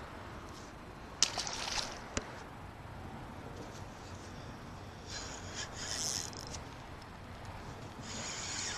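Faint rubbing and whirring of fishing tackle in a few short spells, with one sharp click about two seconds in. The repeated high whirring fits a spinning reel being cranked to bring in a snagged fish.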